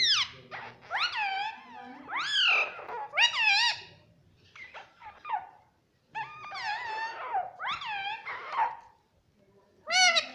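Ring-necked parakeet making a run of high chirping calls that sweep up and down in pitch, in short bursts, with a pause about halfway and one loud call near the end.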